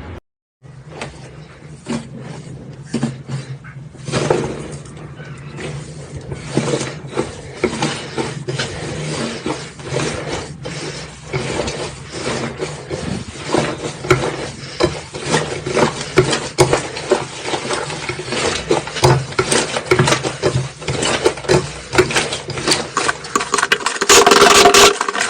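Slime being squeezed and poked, making a rapid run of small wet clicks and pops over a low steady hum, with a louder burst near the end.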